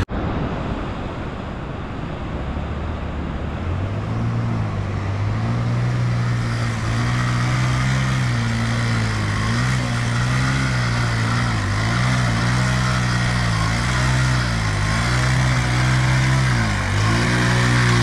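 Small 70cc single-cylinder motorcycle engine labouring up a steep track of loose rocks. It revs up and eases off again and again, its pitch rising and falling about once a second from about four seconds in.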